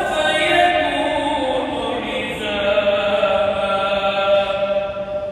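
A single voice reciting the Quran in Arabic, chanted in long melodic phrases with held notes that slide in pitch; a new phrase begins about two and a half seconds in.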